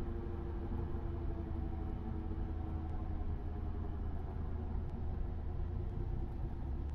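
Cessna 152's Lycoming four-cylinder engine and propeller droning steadily.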